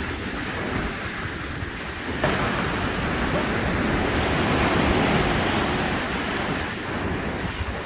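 Lake waves washing onto a rocky shore, with one wave surging in about two seconds in, then swelling and slowly ebbing. Wind blows on the microphone.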